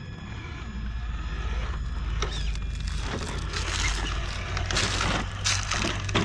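A 1/10-scale Traxxas TRX4 RC crawler's tires crunching and scraping over rocks as it climbs, the noise coming in rough bursts that get louder from about two seconds in, over a steady low rumble.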